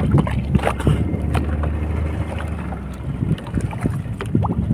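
Steady low rumble of wind on the microphone and water moving against a fishing boat's hull at sea, with a few small splashes.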